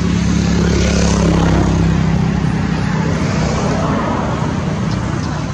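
Steady engine hum of a motor vehicle with a low drone that fades about halfway through.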